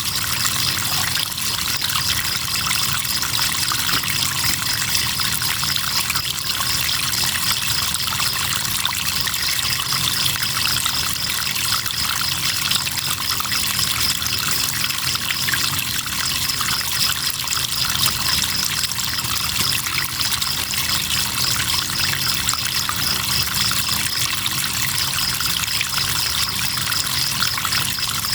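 Steady rush and trickle of flowing river water, with crickets trilling continuously in a high, pulsing band above it.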